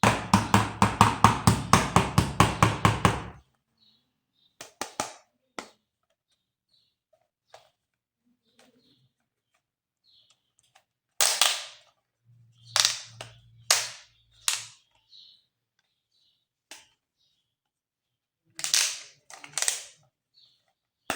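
Toy gun firing a rapid burst of shots, about five a second, for roughly three seconds. Then scattered clicks and rustles of plastic toy parts being handled.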